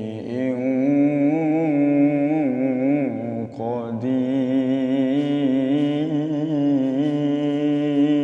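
A young man's solo voice reciting the Quran in the melodic tilawah style, drawing out long ornamented notes with a wavering pitch. There is a short break about three and a half seconds in, then one long held note.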